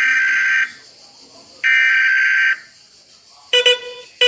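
Emergency Alert System SAME header: two bursts of shrill, warbling digital data tones, each just under a second long with about a second's pause between. About three and a half seconds in, a buzzy alarm beep starts and repeats about every 0.7 seconds.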